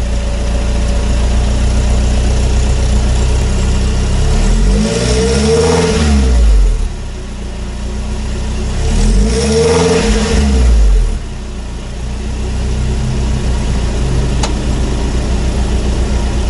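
Lotus Elise engine idling through a newly fitted Saclam aftermarket muffler, blipped twice. Each time the revs rise and fall back to idle, about four seconds apart.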